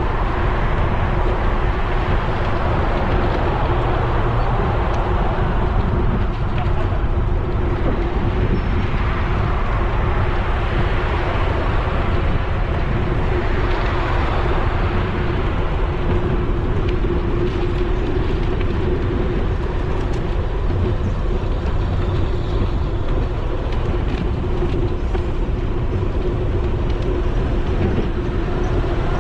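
Steady rumble of wind on an action camera's microphone while riding a bicycle, mixed with tyre noise on asphalt and a constant low hum.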